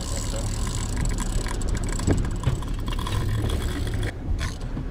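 Yamaha outboard motor running with the boat under way, over wind and water noise, with a spinning reel's gears and drag ticking during the fight with a hooked tuna.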